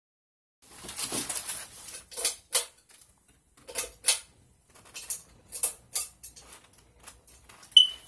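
Ceiling fan pull-chain switch clicking and its small metal bead chain jingling, in several short pulls about a second or two apart, as the fan is started up.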